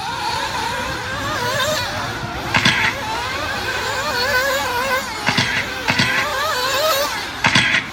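A pack of nitro RC buggies racing, their small glow-fuel engines whining together and wavering in pitch as they speed up and slow down around the track, with a few brief louder bursts.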